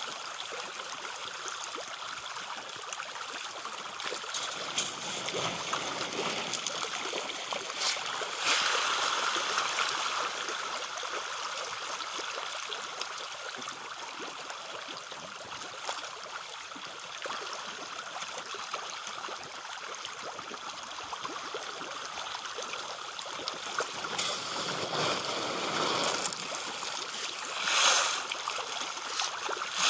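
A dense shoal of fish feeding at the water surface, churning and splashing without pause. It swells louder about eight seconds in, and a sharper burst of splashing comes near the end.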